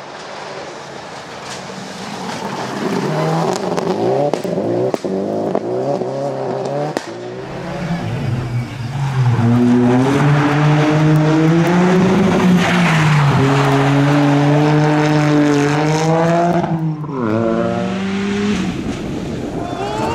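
Rally car engines at full throttle on a stage, growing louder as a car approaches. The revs climb through the gears with short dips at each shift, then drop sharply off the throttle about seventeen seconds in.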